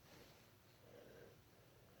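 Faint breathing: two quiet breaths, one near the start and one about a second in.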